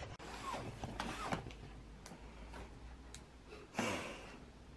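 Cardboard product box being handled and its seal tab picked at: scattered small clicks and scrapes, with a short louder rustle near the end, over a low steady hum.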